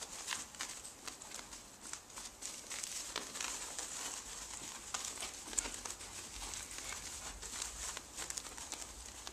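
Puppy pads crinkling and rustling under two small dogs' paws as they move about and play on them, an irregular run of soft crackles.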